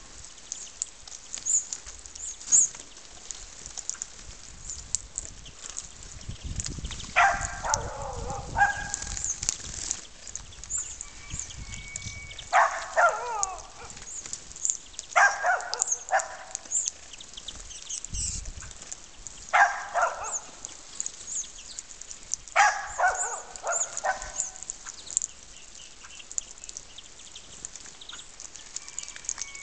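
Small birds chirping almost constantly with short high calls. A louder, harsher call falling in pitch comes about six times, each lasting about a second.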